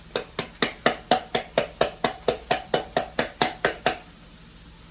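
A metal can of beans being knocked rapidly and repeatedly against the rim of the pan to empty it, about seventeen sharp, evenly spaced metallic knocks, four or five a second, each with a short ring, stopping a little before the end.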